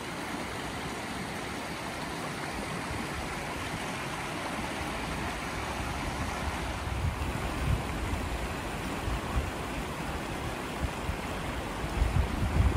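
Steady rush of flowing water, with low gusts of wind buffeting the microphone in the second half, strongest near the end.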